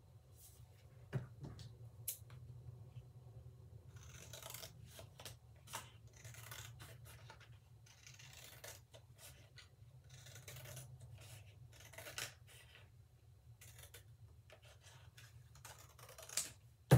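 Scissors cutting a strip of card in a run of short, irregular snips, with a sharp tap near the end.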